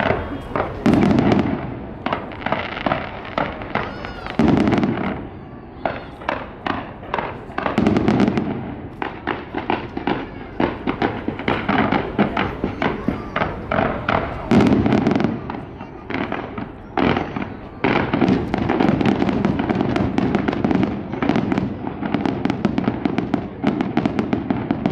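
Fireworks display: a rapid string of bangs and crackles, with deeper booms every few seconds and a near-continuous barrage in the second half.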